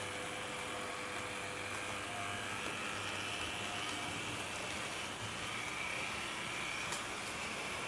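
HO-scale model DB class 78 4-6-4T tank locomotive running with its coaches: a steady small-motor hum and wheels rolling on the rails, with a faint whine that shifts slightly in pitch and one click about seven seconds in.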